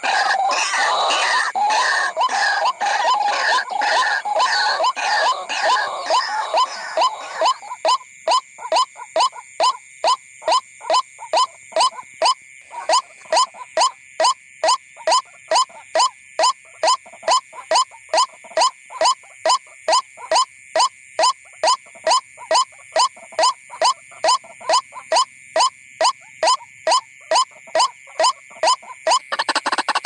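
White-breasted waterhen calling: a dense, jumbled run of calls for the first several seconds, then a long, even series of single short notes at about two a second, stopping near the end.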